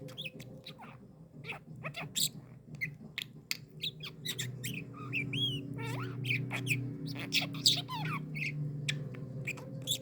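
Pet lovebird chirping and squeaking: a quick, uneven series of short, sharp chirps, some sliding up and down in pitch.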